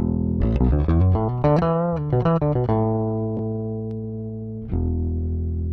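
Rickenbacker 4001S electric bass with flatwound strings, played through both pickups with the tone control fully open and the Vintage Tone Circuit switched off. A quick run of notes gives way to a long note left ringing from about halfway, and a fresh note is struck near the end.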